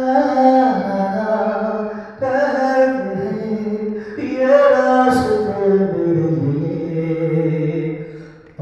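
Slow, chant-like singing in long held notes that step up and down in pitch, in phrases that fade out near the end.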